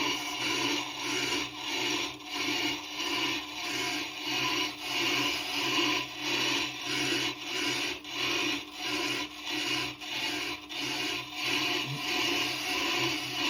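Tormek sharpener's grinding wheel being trued by the TT-50 diamond truing tool: a rasping scrape of the diamond cutting the stone over the machine's steady hum. The scrape swells and fades evenly, about one and a half times a second, as the uneven part of the wheel catches on the cutter each turn.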